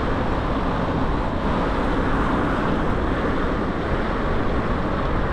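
Steady rushing noise of wind and road on the microphone of a rider moving along a city street, with traffic noise from the road alongside.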